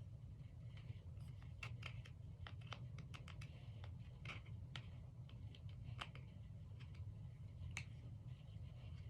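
Faint, irregular small clicks and crackles of slime being worked by hand, heard over a low steady hum.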